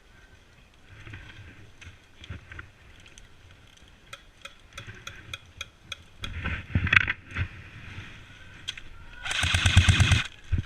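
Airsoft guns firing: scattered sharp single shots and clicks, then near the end a rapid burst of full-auto fire lasting about a second, with the shots running together at around fifteen a second.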